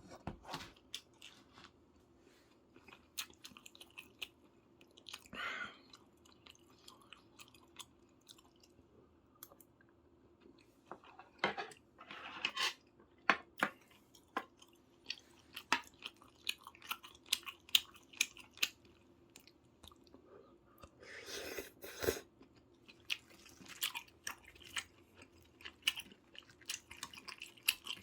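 Close-miked chewing and biting of soy-sauce braised chicken (jjimdak): many irregular short, wet clicks, with a few louder, longer stretches of chewing now and then.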